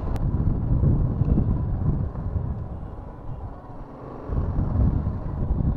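Riding noise of a BMW G310 GS motorcycle on the move: wind rush on the microphone over the bike's single-cylinder engine. It eases off in the middle and builds again about four seconds in.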